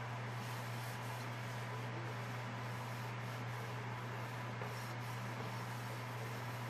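Paper towel held in tongs rubbed back and forth across a flat metal stovetop griddle to clean it, over a steady low hum and hiss.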